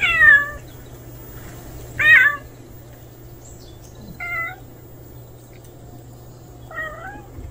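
A stray cat meowing four times, short calls about two seconds apart, the first two loudest.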